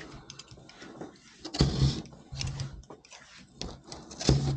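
Irregular knocks and clicks of hand work on wall panels, a few sharp ones spaced about a second apart, the loudest near the end.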